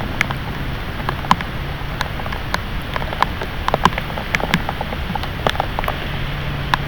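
Heavy thunderstorm rain pouring down steadily, with large drops splattering irregularly on a nearby surface as many sharp ticks over the hiss of the downpour.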